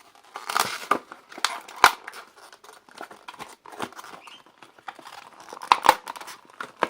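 Scissors snipping through a stiff plastic blister pack, with irregular crackling and crinkling of the plastic as it is cut and pulled apart.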